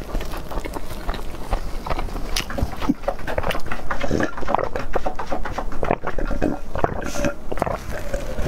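Close-miked mouth sounds of a person drinking milk tea with tapioca pearls straight from a glass bowl: wet gulping and slurping, with chewing of the soft pearls and rice balls, as a dense run of small wet clicks.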